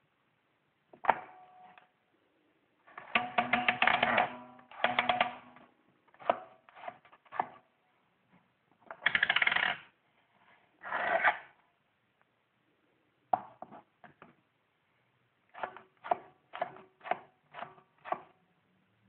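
Handmade wooden coin machine being worked: a coin clatters and rattles through the wooden mechanism in several bursts, then a run of separate sharp clicks as the wooden knob is turned.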